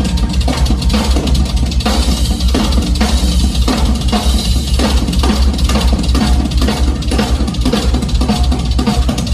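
Rock drum kit played live and amplified: a dense, fast run of drum hits over a constant heavy bass-drum boom.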